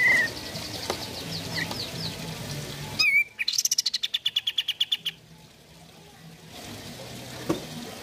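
Caged kapas tembak bulbul singing: a short trill at the start, then about three seconds in a loud call that runs into a fast string of repeated notes for about two seconds. Fainter chirps from other birds are heard in the background.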